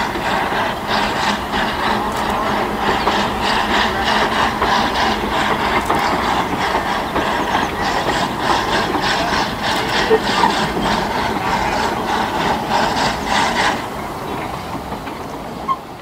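Narrow-gauge steam locomotive working a passenger train, its exhaust chuffing steadily about three times a second. The chuffing dies away near the end.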